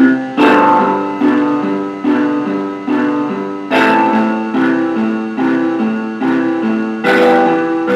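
Sampled piano played back by notation software: a broken-chord accompaniment in steady eighth notes, a bass note followed by the chord tones, moving through G, A minor and E minor chords. There is a stronger attack at the start of each bar, about every three seconds.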